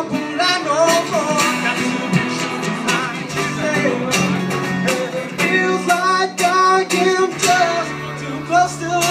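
Live acoustic set: two acoustic guitars strummed while a man sings into a microphone.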